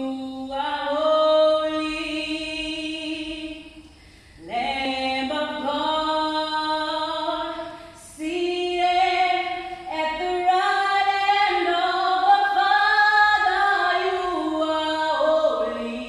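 A woman singing unaccompanied, holding long notes in phrases, with short breaks about four seconds in and about eight seconds in.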